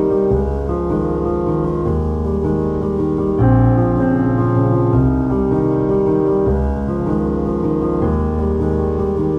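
Background piano music: slow, sustained chords changing about every second and a half.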